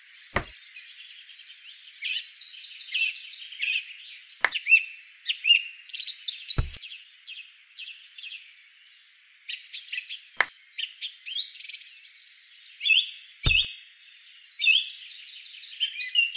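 Small birds chirping and twittering, a dense run of short high calls and quick whistled glides. Five sharp clicks or knocks stand out, spread unevenly through it.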